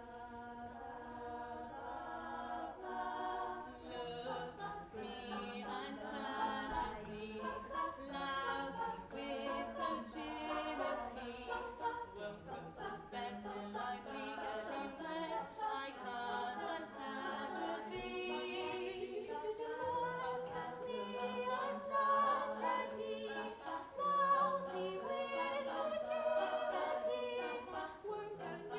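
All-female youth a cappella group singing in close harmony with no instruments, starting with held block chords and then moving into shifting voice parts under a lead line.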